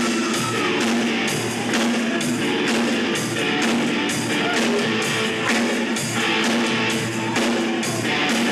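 A rock band playing live: guitar-led rock music with a steady beat.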